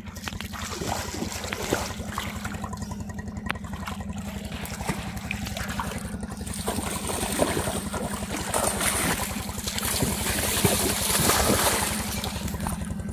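Shallow river water splashing and sloshing as fish are caught by hand and handled in a plastic pot of water. The splashing grows heavier in the last few seconds. A steady low rhythmic hum runs underneath.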